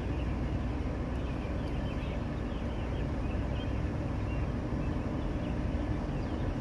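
Steady low rumble of an approaching freight train's diesel locomotive.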